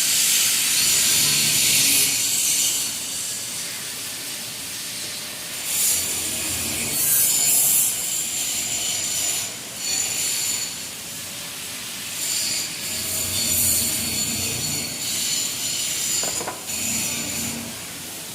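Hand tools working on a 2010 Chrysler 300C engine in repeated bursts of a few seconds each, as the coils and spark plugs are taken out.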